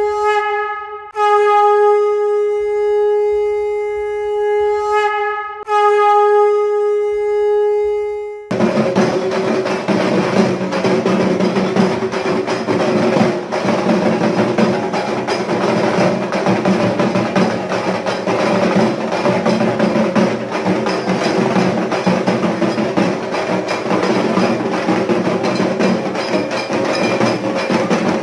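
A conch shell blown in three long, steady notes with short breaks between them. About eight and a half seconds in, dense, fast drumming starts suddenly and carries on.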